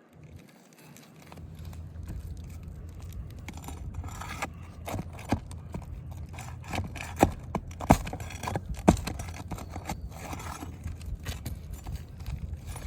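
Tools scraping and clicking on asphalt roof shingles as a creased shingle is worked loose for replacement. Several sharp knocks stand out in the middle, over a steady low rumble.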